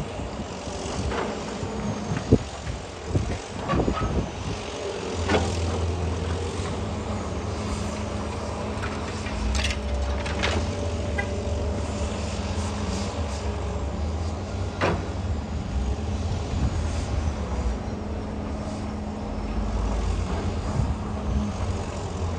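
Tracked excavator's diesel engine running steadily, louder from about five seconds in, with sharp clunks of concrete rubble as the MDE Scorpion S1600 grab picks through it, several in the first few seconds and a few more later.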